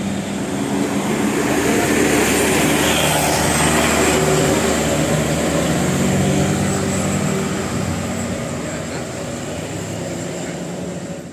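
A large bus driving past, its engine drone and tyre noise swelling for the first few seconds and then fading away in the second half.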